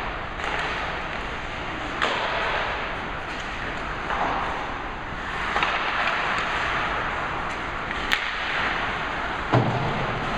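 Ice hockey play: skate blades scraping the ice in swelling hisses, broken by several sharp clacks of sticks and puck.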